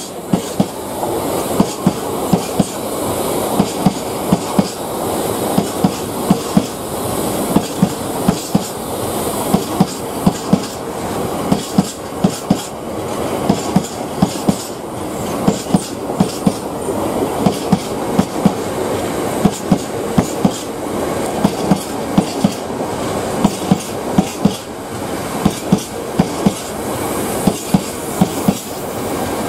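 A freight train of covered hopper wagons rolling past on the adjacent track. Its wheels clatter over the rail joints in clusters of sharp clicks every second or two over a steady rumble.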